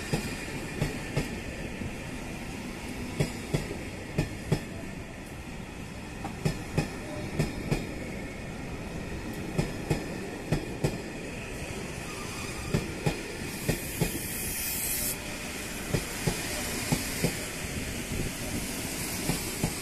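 Passenger coaches of a departing train rolling past at low speed, their wheels clicking over rail joints in quick pairs every second or two over a steady rumble. A short hiss about two-thirds of the way through.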